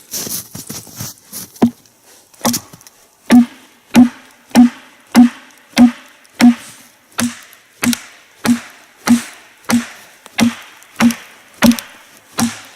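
Repeated blows driving wooden wedges into the crack of a log to split it. A few lighter knocks come first, then from about three seconds in a steady run of hard strikes, about one and a half per second, each with a short hollow ring.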